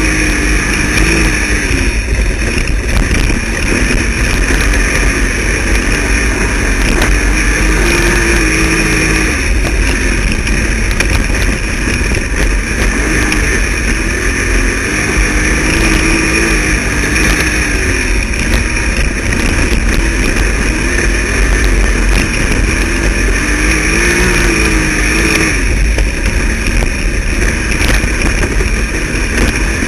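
Wingless dirt sprint car's engine heard onboard at racing speed, its pitch rising down each straight and dropping back going into the turns, about every seven or eight seconds.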